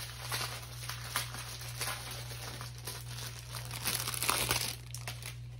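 Small plastic bags of diamond-painting drills crinkling and rustling as they are handled, with a louder stretch of rustling about four seconds in.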